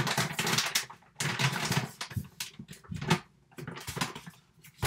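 Stiff stand-up bag of coconut sugar crinkling and rustling as it is handled and set down, in irregular crackling bursts with short gaps.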